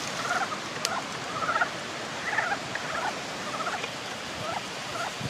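Ezo brown frogs calling at their breeding pond: a chorus of short, rattling clucks, several overlapping, about two a second.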